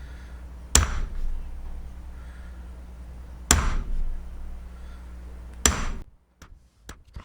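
Three sharp hammer strikes on a punch, a few seconds apart, marking points on the wooden gear blanks. A steady low hum runs under them and cuts off near the end.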